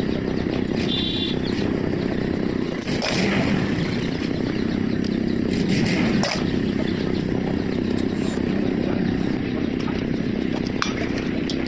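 An engine running steadily nearby, with a few light metal clicks as small parts are handled in a steel basin.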